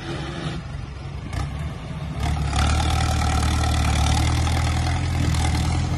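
Mahindra Arjun tractor's diesel engine running under load as it pulls a fully loaded trolley, with a steady low note that grows louder about two seconds in.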